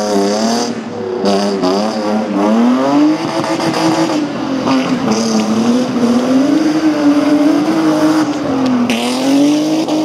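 BMW E34 5 Series sedan's engine revving hard as the car slides through mud and gravel, the revs climbing and dropping several times.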